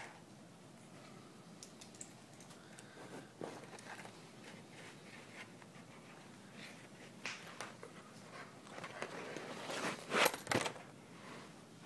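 Scattered light scrapes and clicks of movement close to the microphone, with a louder scratchy cluster about ten seconds in.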